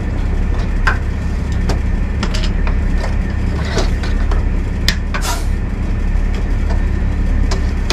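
A steady low mechanical hum, with scattered clicks and knocks as a long metal snake hook works inside a wooden snake box.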